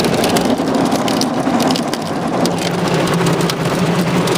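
Automatic car wash heard from inside the car: cloth brushes scrubbing against the windows and body while water sprays, a loud, dense wash of noise with scattered sharp slaps. A steady low machine hum runs underneath.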